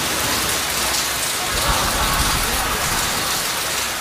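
Steady rain falling on wet pavement, an even hiss of drops hitting the ground.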